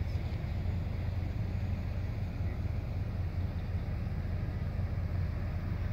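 Wind on the microphone: a steady low rumble.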